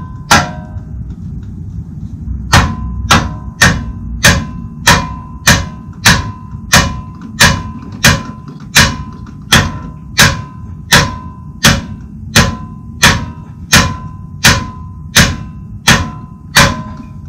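Mallet blows on the handle of a Siebenrock wrench clamped on a BMW Airhead's seized star exhaust nut, about two a second, each with a short metallic ring from the wrench. After a single blow there is a pause of about two seconds, then a steady run of blows, with a low steady hum underneath. The nut does not budge.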